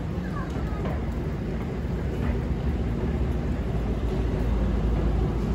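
Diesel engine of the Walker railmotor RM22 running with a steady low hum, growing louder near the end.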